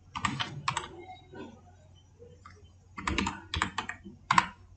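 Computer keyboard keystrokes: a few keys in the first second, a pause, then a quicker run of keys near the end.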